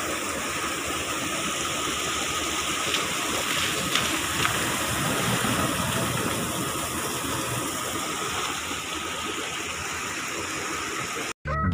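Steady rush of floodwater running out of an overflowing pond: a constant, even noise that cuts off suddenly near the end.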